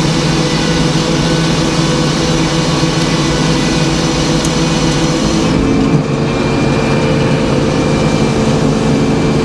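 Large circular sawmill blade ripping a board off a poplar log, a loud steady cut that sounds like butter in the clear wood. About six seconds in, the blade clears the end of the log and the cutting hiss drops away, leaving the mill's drive and the free-spinning blade running.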